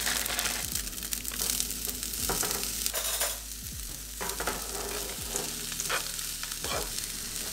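Frozen rice, peas and corn sizzling in hot olive oil in a stainless steel frying pan, with a spoon scraping and stirring through them in short strokes.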